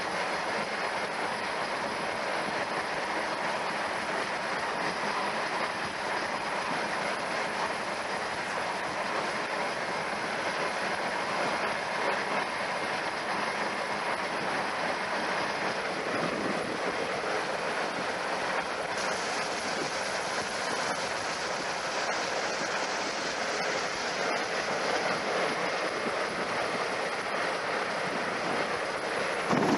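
Heavy machinery running steadily, a loud unbroken din with no pauses. It turns slightly brighter about two-thirds of the way through.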